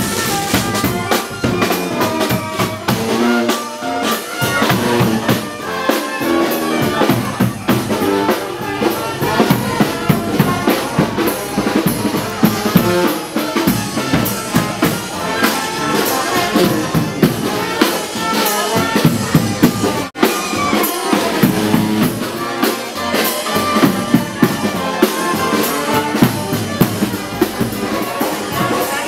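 New Orleans second-line brass band music: brass horns over a driving snare and bass drum beat. It cuts out for an instant about twenty seconds in.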